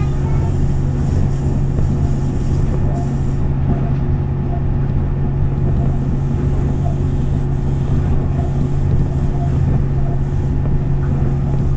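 Tokyo Monorail car running at speed, heard from inside the cabin: a steady, even low drone from the rubber-tyred train travelling along its concrete beam.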